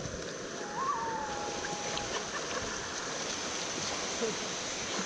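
River water sloshing and splashing around swimmers. About a second in, a thin whistle-like call rises briefly and then holds for about a second.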